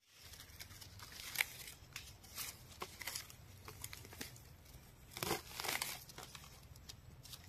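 Dry forest leaf litter rustling and crackling in short, scattered bursts as hands work through it on the forest floor, with a louder rustle a little after five seconds.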